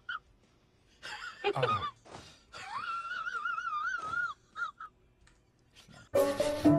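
Cat yowling: a falling moan about a second in, then a long, high, wavering wail and a couple of short chirps. Jingly music starts near the end.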